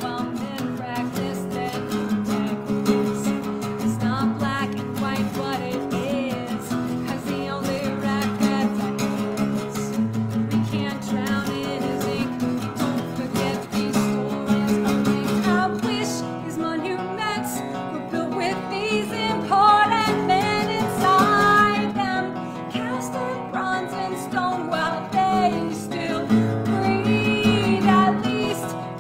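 Acoustic guitar strummed and picked in a steady song accompaniment, with a woman's singing voice coming in over it about halfway through.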